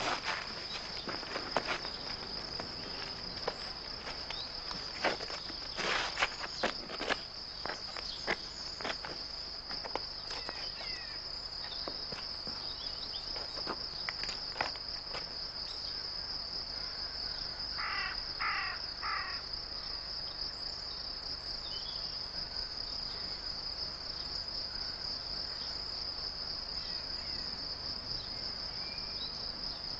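Insects chirring steadily at a high pitch. Scattered clicks and rustles come in the first ten seconds, and three short chirps come about eighteen seconds in.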